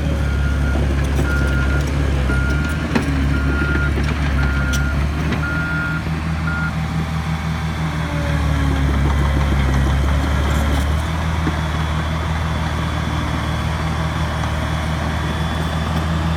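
Heavy earthmoving machine's engine running steadily, its reversing alarm beeping evenly about every 0.7 seconds. The beeping stops about seven seconds in and starts again near the end, and there is one sharp knock about three seconds in.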